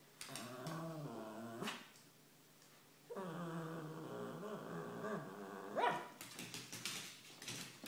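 Cavalier King Charles Spaniel making two long, low, wavering play growls, asking to play, then a short sharp bark about six seconds in.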